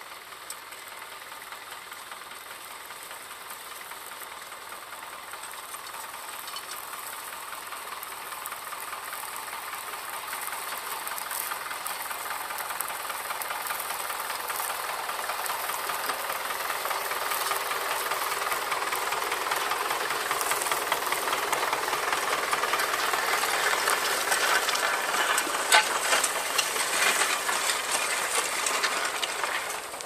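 Small vintage tractor engine running under load as it pulls a plough, growing steadily louder as it comes close, then dropping away abruptly near the end.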